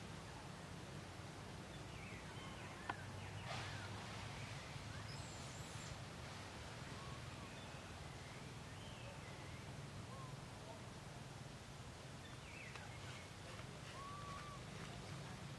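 Faint outdoor ambience of scattered short bird chirps and whistles over a steady low hum, with a sharp click about three seconds in and a brief rustle just after.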